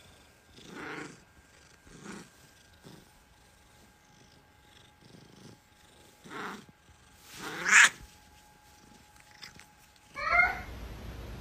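A long-haired white cat making a series of short, soft calls about once a second, the loudest near eight seconds. Near the end, after a cut, another cat meows with a gliding pitch.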